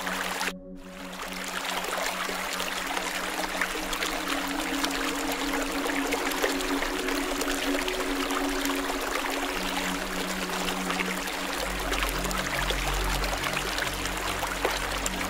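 Steady trickling, running-water noise over soft, sustained low music tones. The sound drops out briefly about half a second in, then returns.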